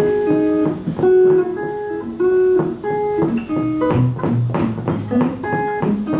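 Acoustic guitar strumming, with a neck-rack harmonica playing a melody of steady held notes over it.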